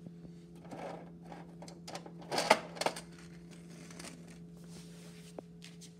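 Small toy monster truck clattering and rolling on a tile floor as a hand pushes and sets it down, with a quick cluster of sharp knocks about two and a half seconds in. A steady low hum runs underneath.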